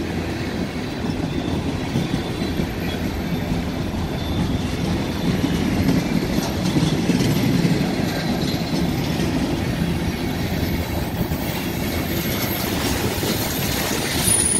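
Freight train cars (boxcars, then tank cars) rolling past, a steady rumble and clatter of steel wheels on the rails.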